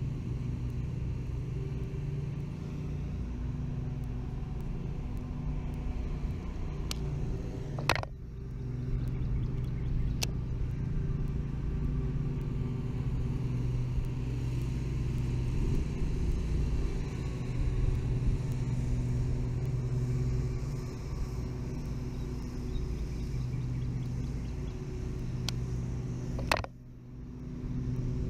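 A steady low hum of a running engine or motor, with a few fainter higher tones above it. Sharp clicks break it about eight seconds in and again shortly before the end.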